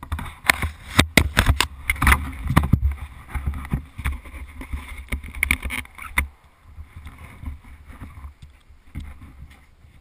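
Muffled knocks and rumbling picked up by a helmet-mounted camera in its sealed housing as the rider moves on the dirt bike, loud and irregular at first, then quieter after about six seconds.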